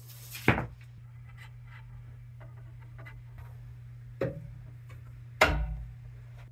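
Three sharp knocks of hard objects, with lighter clicks and taps between them, over a steady low hum.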